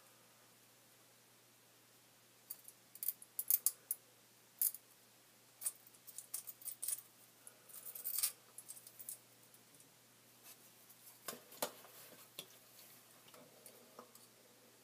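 Small metal hand tool clicking and snipping against a fishhook at close range: flurries of sharp clicks from about two to nine seconds in, then a few more around eleven to twelve seconds.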